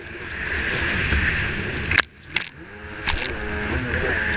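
Racing jet ski running at speed over choppy water, heard through an onboard action camera mounted on its nose, with wind and spray noise throughout. About two seconds in come a few sharp smacks against the water, then the engine's pitch rises and falls as the throttle is worked.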